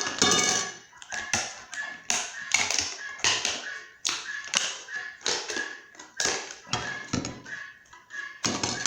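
Scissors snipping through a thermoformed acetate plate, trimming off the excess plastic: a run of sharp cuts about twice a second.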